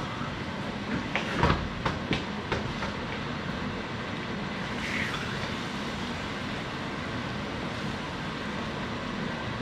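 Food sizzling in a hot frying pan, a steady hiss, with a few clinks and knocks of a fork and pan in the first three seconds.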